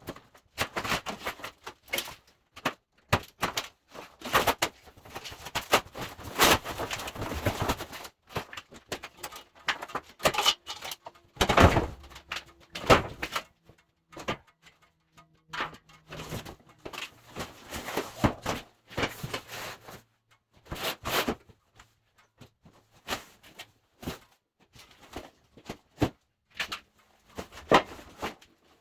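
Irregular handling noise as a sawmill shipment is unpacked: scrapes, rustles and knocks come in short spurts with gaps between them, with a few sharper thuds.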